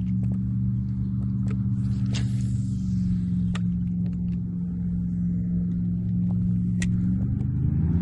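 An engine running steadily with a low hum, its pitch starting to rise near the end, with a few sharp clicks over it.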